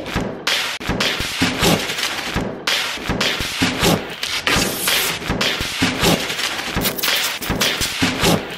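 Clear protective plastic film being peeled off a new stainless-steel refrigerator's drawer and door, crackling and rustling with repeated sharp snaps as it pulls free.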